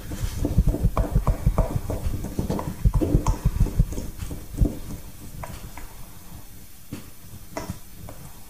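Wooden spoon chopping and scraping through flour and fat in a stainless steel mixing bowl, breaking the fat into the flour for pastry. It makes a quick run of knocks against the bowl that thins out to occasional taps after about five seconds.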